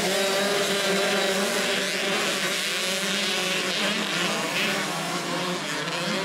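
A pack of 65 cc two-stroke youth motocross bikes racing together. Many engines rev at once, their pitches rising and falling as the riders open and close the throttle through the corners.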